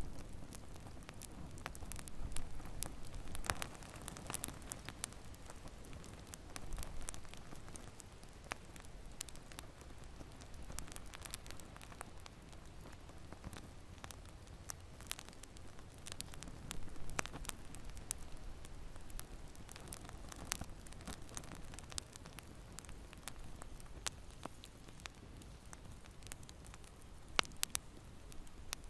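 Wood fire burning in a fireplace: a low steady rumble of the flames with irregular sharp crackles and pops from the burning logs.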